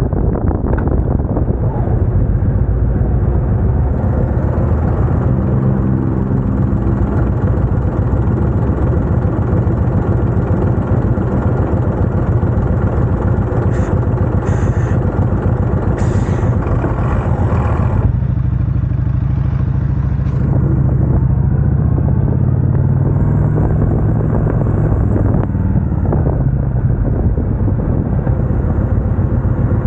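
Motorcycle engine running steadily under way, its pitch shifting a little now and then, with a short easing of the upper sound about two-thirds of the way through.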